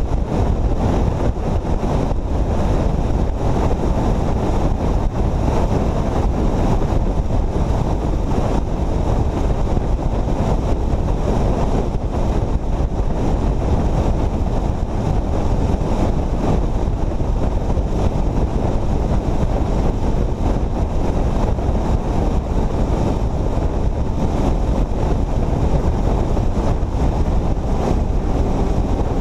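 Steady wind rush on the microphone of a camera mounted on a vehicle moving at highway speed, with road and engine noise beneath.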